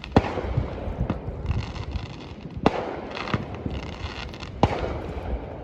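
A handful of sharp, irregular knocks or pops, about five, over a steady rumbling hiss.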